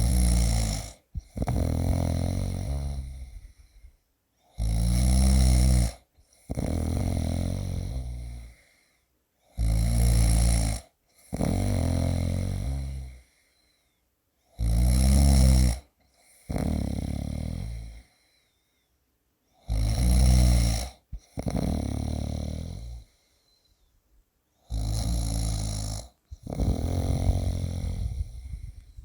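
A person snoring loudly like a pig, in a regular rhythm about every five seconds. Each cycle is a short, loud snore followed by a longer, softer one, then a brief pause.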